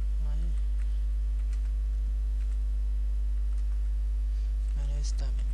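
Steady low electrical hum, with faint scattered computer keyboard key clicks as a line of text is typed.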